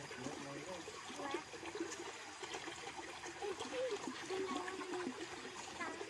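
Shallow rocky stream running and trickling over stones.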